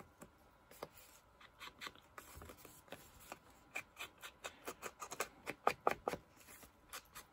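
Paper handled and worked by hand as a homemade postcard is distressed to look old: quick, irregular light taps and scrapes on the card, busiest and loudest a little past the middle.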